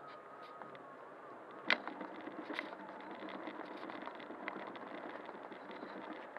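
Ride noise from an Inmotion V8 electric unicycle on concrete, heard through a camera mounted on it: a steady rumble with a faint wavering motor whine. There is a sharp knock about two seconds in, followed by smaller clicks and rattles.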